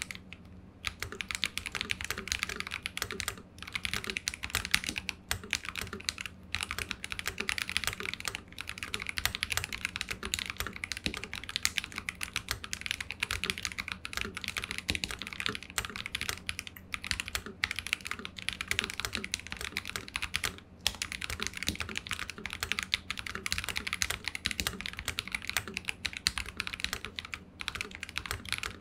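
Continuous typing on a Keydous NJ80 mechanical keyboard: an aluminium plate with plate foam, stock Akko Radiant Red linear switches and Akko cherry-profile keycaps. The keystrokes come in a dense, steady stream of clacks with a few short pauses.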